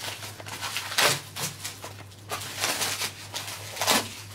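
Bubble wrap and cardboard packaging torn open by hand: crinkling and rustling, with two louder rips, about a second in and near the end.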